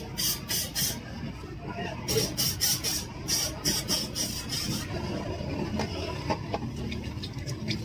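Short hissing squirts of an aerosol cleaner spray, more than a dozen quick bursts in the first five seconds, sprayed through a diesel injector nozzle tip to flush out a tip stuck up by engine overheating.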